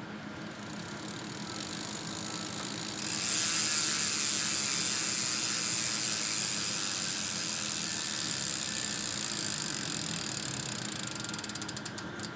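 Freehub of an Aeroic AM 8.7 six-pawl bicycle hub clicking as the wheel freewheels: a fast, even ratchet buzz that grows, turns sharply louder about three seconds in and holds, then slows into separate clicks near the end and stops.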